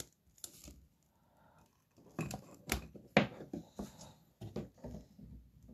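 Trading cards and a rigid plastic toploader being handled and set into a plastic display stand: a string of soft clicks and taps, most of them between about two and five seconds in.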